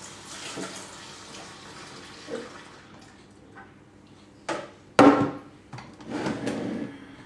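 Tap water running into a kitchen sink, a pan filling to soak, fading out after about three seconds. Then two sharp knocks, the second the loudest, and a brief clatter.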